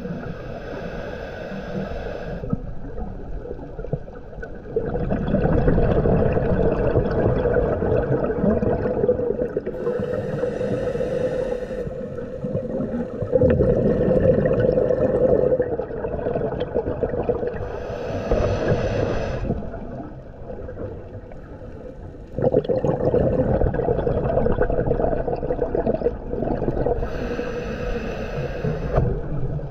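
Scuba diver's regulator breathing heard underwater: a hissing inhale through the demand valve alternating with a louder, rumbling rush of exhaled bubbles. The breaths are slow, about one every eight to nine seconds.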